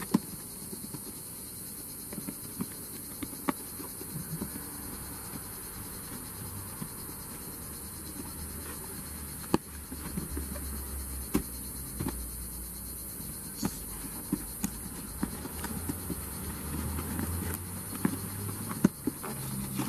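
Scissors cutting packing tape and a cardboard box being handled and opened: scattered clicks, snips and taps with some rustling and low bumps, over a steady high hiss.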